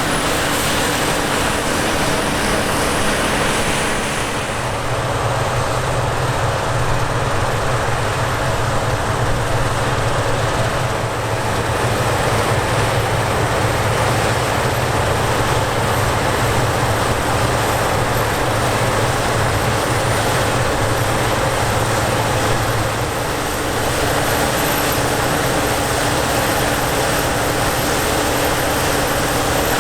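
Heavy harvest machinery running steadily: a continuous diesel-engine drone with a constant hum. A deeper engine note comes in about four seconds in and fades away a little past twenty seconds.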